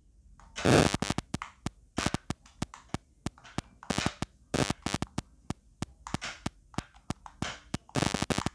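A cheap plastic toy RC truck making rapid, irregular sharp clicks and crackles, several a second, while it struggles to drive and turn.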